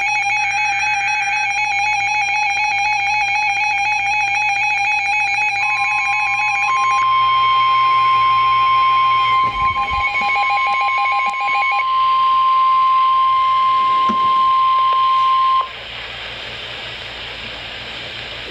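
Weather radio sounding an emergency alert. A warbling electronic buzzer alarm is joined about six seconds in by the steady 1050 Hz NOAA Weather Radio warning tone, which holds for about ten seconds. The buzzer stops about two-thirds of the way through, and the tone cuts off abruptly, leaving radio static hiss.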